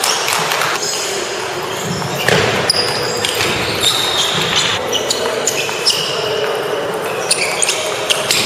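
Table tennis balls clicking off paddles and tables at irregular intervals, echoing in a large gym hall.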